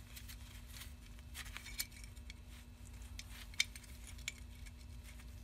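Light metallic clicks and clinks of a rear drum brake shoe, its spring and adjuster being handled as the spring is angled into place, with one sharper click a little past halfway.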